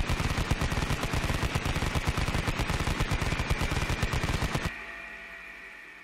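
Vulcan rotary machine gun sound effect: a continuous, very rapid stream of shots over a steady high whine. The firing stops about four and a half seconds in, and the whine carries on, fading away.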